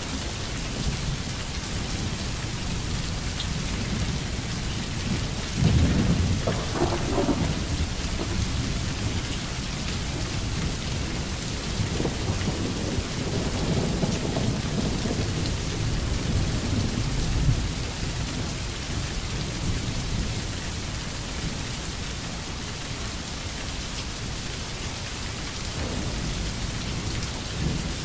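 Steady heavy rain with rolling thunder: a rumble swells about six seconds in and a longer one builds in the middle and fades.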